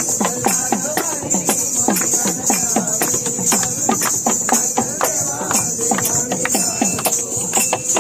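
Dholki drum played fast in a dance rhythm, its bass strokes sliding down in pitch, over a steady high jingling.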